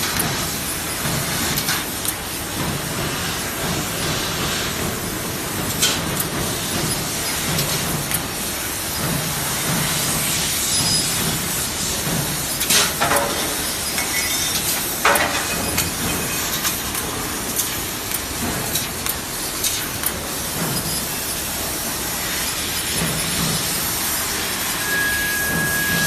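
A 1000 W laser cutting machine running: a steady hiss, with a couple of sharp clicks around the middle and a short high beep near the end.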